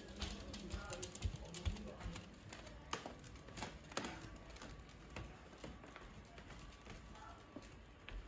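Corgi puppy's claws clicking on a hard floor as it walks: light, irregular clicks.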